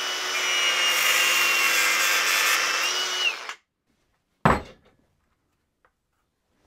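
Angle grinder running under load, cutting into the engine, with a steady high whine over a hiss; it winds down and stops about three and a half seconds in. A single sharp clunk follows about a second later.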